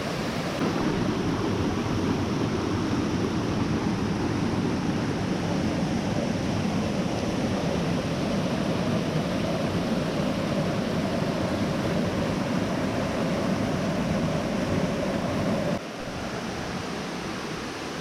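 Waterfall, a steady rush of falling water; the level steps down suddenly near the end.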